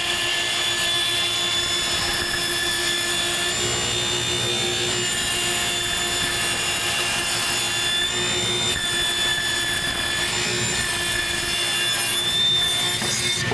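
Electric power saw running steadily while ripping the edge off a 2x6 board, its motor whine shifting slightly in pitch now and then as it cuts.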